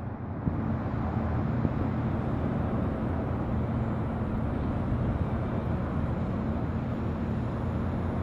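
Steady outdoor city background noise: an even low rumble with a faint steady hum.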